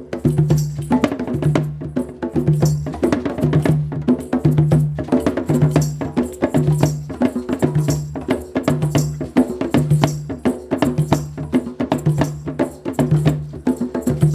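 Percussive music: fast wooden clicks and hand percussion over a low note that pulses about once a second.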